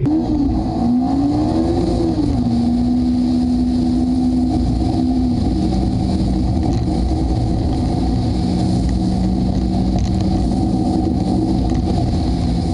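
Car engine heard through a GoPro mounted on the front of the car as it drives: the engine note rises in the first two seconds, holds steady, then settles to a lower steady note about five seconds in, with constant wind rumble on the microphone.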